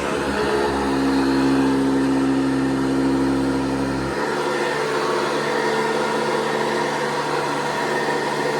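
1980s Hoover Guardsman industrial vacuum cleaner running with a steady motor hum, its tone changing abruptly about four seconds in.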